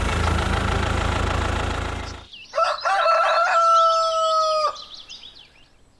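A steady low engine hum for about the first two seconds. Then a rooster crows once, one long held call, with small birds chirping high above it. The sound fades away near the end.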